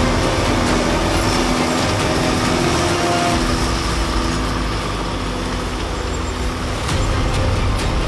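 Tracked carrier's diesel engine running steadily under load while its DENIS CIMAF forestry mulcher head shreds brush and small trees. The result is a continuous heavy machine drone.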